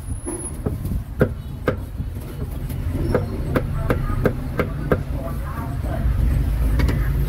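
A cleaver chopping on a wooden block: a string of sharp knocks at an uneven pace that stop about five seconds in. Under them is a steady low traffic rumble that grows louder near the end.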